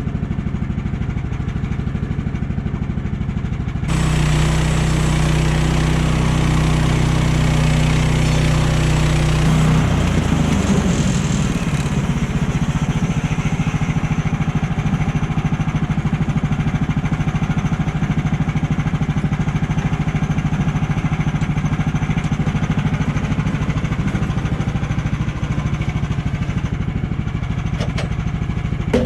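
Woodland Mills HM130 portable sawmill's small gasoline engine running. About four seconds in it revs up and holds a steady higher tone, then from about ten seconds the pitch wavers and it settles into steady running for the rest of the time.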